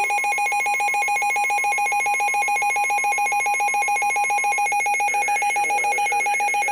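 Emergency Alert System attention signal: a loud, steady electronic alert tone with a rapid flutter, sounding before a severe weather warning is read out.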